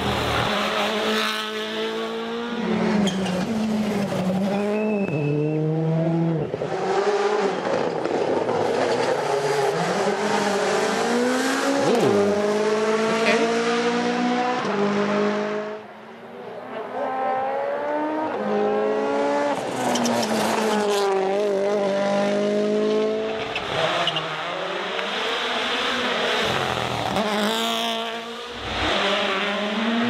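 WRC rally cars at full speed on a stage, their turbocharged four-cylinder engines revving hard, climbing in pitch through each gear and dropping back on the shifts and braking. There are several passes, with a short lull about halfway.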